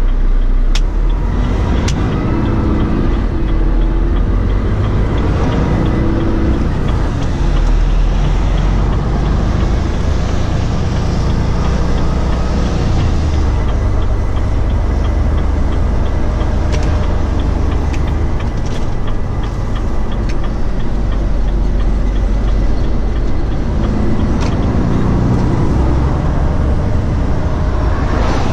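Renault Trucks T-range lorry's six-cylinder diesel engine running under way, heard from the cab along with tyre and road noise. A faint regular ticking runs through much of it.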